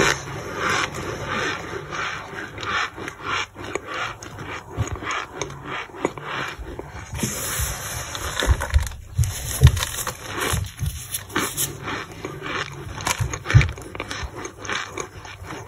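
Gloved hand pressing and scraping through dry, crumbled boiled-brick powder in a plastic tub: irregular crunching and crackling with the glove rubbing against the plastic, and a few dull thumps in the second half as the hand presses down.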